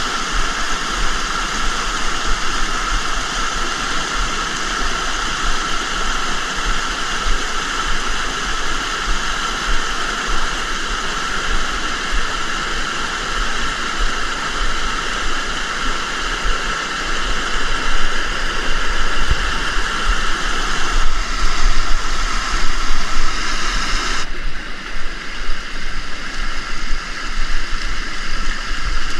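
Steady rush of fast-flowing river water. The higher hiss thins out suddenly about three quarters of the way through.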